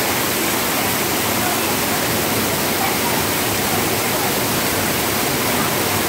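Water pouring in a curtain from the rim of an overhead water-play fountain and splashing into a shallow pool: a steady, even rush.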